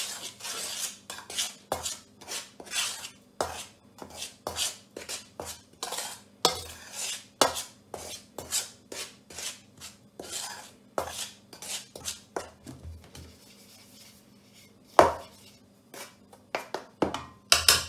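A metal fork stirring dry flour in a stainless steel bowl, its tines scraping and clicking against the metal about twice a second. The strokes ease off for a moment, then there is one loud knock on the bowl followed by a few more strokes near the end.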